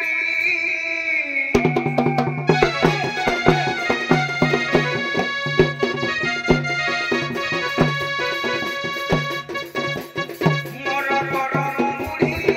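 Odia folk-theatre music: harmonium chords with drum strikes, and a man singing over the harmonium at the start and again near the end. The drums come in about a second and a half in and carry an instrumental passage through the middle.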